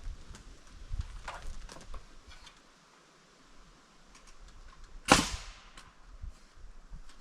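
Scattered sharp knocks of carpentry work on timber, with one loud sharp crack about five seconds in.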